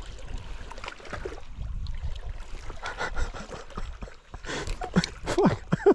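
Wind buffeting the microphone over water lapping on the rocks. In the last second or so, a few short pitched, gliding sounds, voice-like, are the loudest part.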